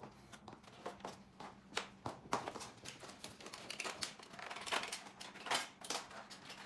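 Irregular clicks, taps and rustles of packing material and bike parts being handled as foam padding and ties are stripped from a new electric bike.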